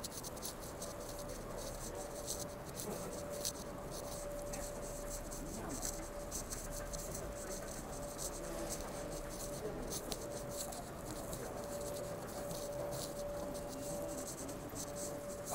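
Footsteps and light scuffing of someone walking on a tiled concourse floor, heard as frequent soft high ticks, over a steady hum.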